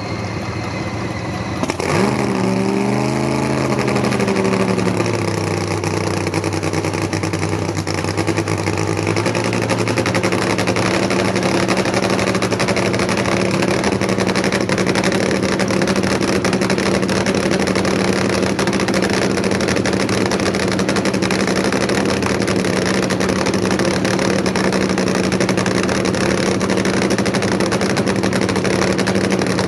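Supercharged nitromethane-burning big-block V8 of a nostalgia funny car, running loud. About two seconds in it comes up sharply, the revs rise and fall for a few seconds, and then it settles into a steady idle.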